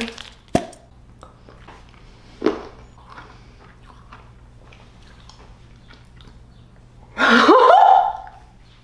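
Someone chewing a fizzy chewable electrolyte tablet, with a sharp click about half a second in and small crunching ticks. Near the end comes a loud, drawn-out vocal exclamation, a reaction to the tablet's sour taste.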